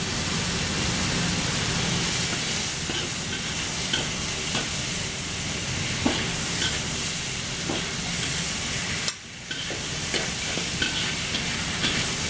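Chicken and asparagus stir-frying in a wok, a steady sizzle, with a metal spatula clinking and scraping against the wok now and then. The sizzle drops out briefly about nine seconds in.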